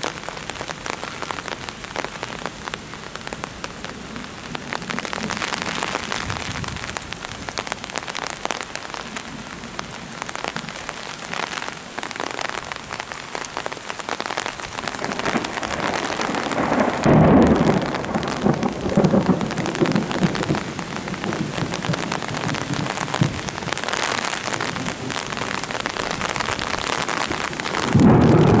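Rain falling steadily, a dense pattering of drops. It grows louder about halfway through, with deeper rumbling surges twice, the second near the end.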